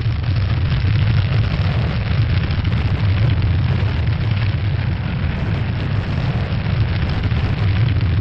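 Steady, deep rumbling roar: a sound effect for a Mars entry capsule tearing through the atmosphere behind its glowing heat shield.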